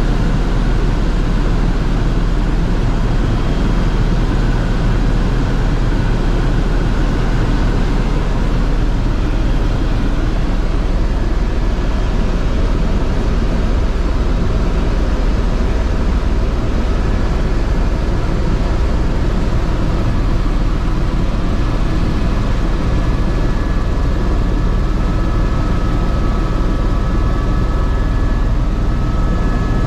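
Airbus H130 helicopter in flight, heard from inside the cabin: a loud, steady drone of the main rotor and turbine. Faint steady whines join in during the second half.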